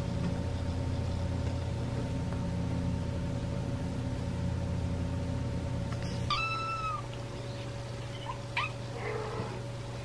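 A cat meows once, a clear high call about six seconds in, followed by a couple of short, fainter mews. Before the meow a steady low rumble runs underneath and stops just as the call begins.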